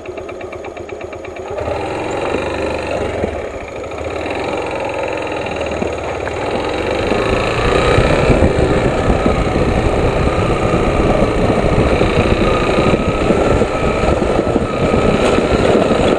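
Motorcycle engine idling with an even ticking for the first second or two, then pulling away and running under load along a bumpy dirt track. It gets louder in steps as it picks up speed, with a rough rumble from the road.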